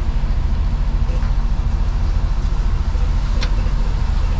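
Mercedes-Benz Actros truck's diesel engine running, a steady low rumble heard inside the cab as the truck moves off slowly. A brief high-pitched click about three and a half seconds in.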